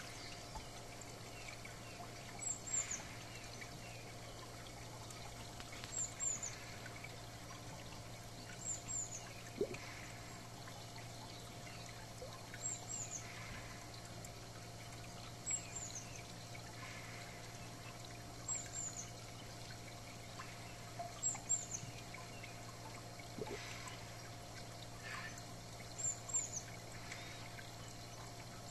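Water pouring and trickling steadily into a garden pond, over a steady low hum. A small bird's short, high, falling double chirp repeats every three seconds or so.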